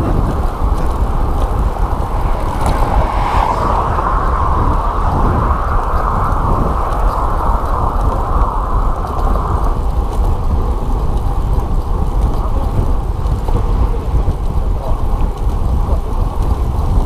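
Steady wind rush on an action camera's microphone while riding a road bike, a loud, low, even noise, a little brighter between about two and ten seconds in.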